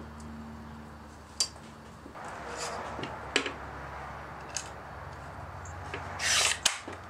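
Short strips of collated nails being handled on a steel bandsaw table and loaded into a Bostitch nailer's magazine: light metal clicks and scraping, then a louder rasping slide just after six seconds in that ends in a sharp click.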